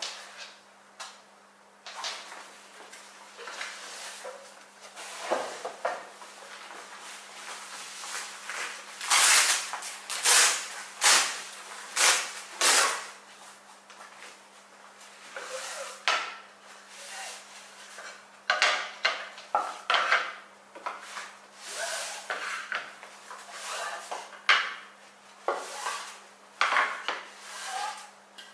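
Handling noise of a fabric carry bag being shuffled and rustled, loudest in a run of bursts about ten seconds in. Then a series of knocks and light clatter as wooden table-top panels are lifted out and handled.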